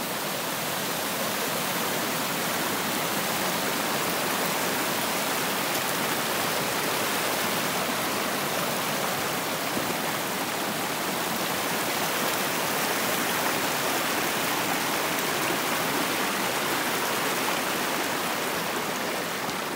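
Creek water running after rain: a steady, even rush of flowing water.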